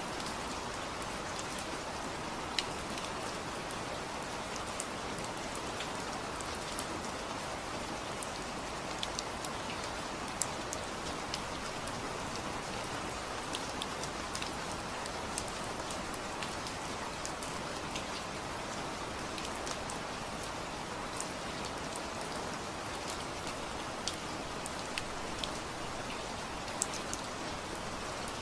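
Steady rain falling, an even hiss with many individual drops ticking sharply on a nearby surface at irregular moments throughout.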